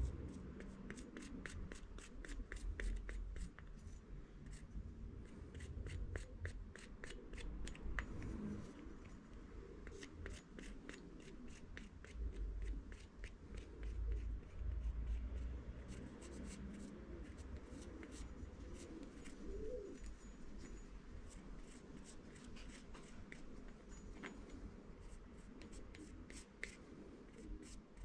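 Light, rapid clicks and scrapes of a plastic Loctite bottle nozzle dabbing and rubbing around the bore of a steel chain sprocket as the compound is spread, a few clicks a second.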